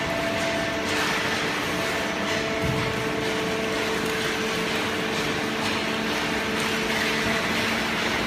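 Waste paper baler and its conveyor running: a steady machine noise with several held hum tones that shift every few seconds.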